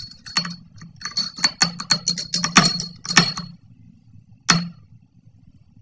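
Metal spoon stirring fast in a glass bowl of milk, clinking rapidly against the glass with a ringing tone for about three seconds, then one more clink about a second later.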